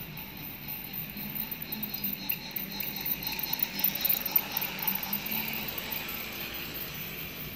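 Toy train's small electric motor whirring and its plastic wheels clicking and rattling over the plastic track joints as it approaches and passes, loudest about four seconds in, then easing.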